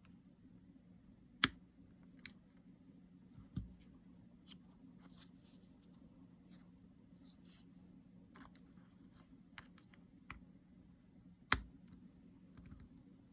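Small plastic clicks and scratching of a keycap being worked onto the scissor-switch clips of a Logitech Combo Touch keyboard: a few sharp snaps, the loudest near the end, with softer scraping in between over a low steady hum.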